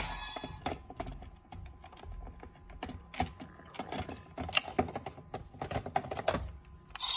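Plastic parts of a Kamen Rider Gotchard toy belt being handled and fitted together: irregular clicks, taps and rattles, with one sharper click about halfway through.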